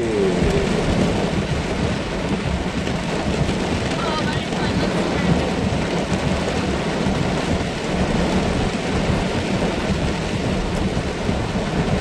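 Heavy rain pelting a car's roof and windscreen, heard from inside the cabin as a steady dense hiss over a low rumble.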